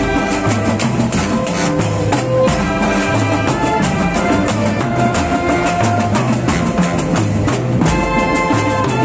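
Marching band playing: brass and reed instruments (sousaphone, saxophones, clarinets) carry a tune over a steady beat of bass drums and snare drums.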